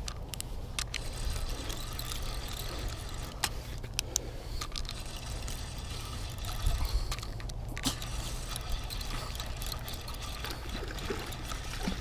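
Water splashing and trickling as a hooked catfish is fought in to the bank, with a few sharp clicks and a steady low rumble underneath.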